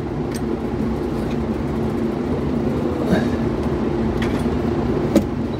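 A steady mechanical rumble from some running machine, with a few short, light clicks as parts are handled around the air compressor.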